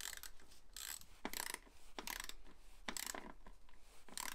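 Socket ratchet wrench clicking in short bursts as its handle is swung back and forth, undoing a bolt to take off the scooter's airbox.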